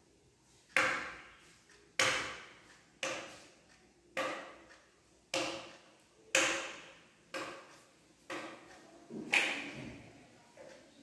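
A sharp strike repeating about once a second, nine in all, each ringing briefly and fading over about half a second.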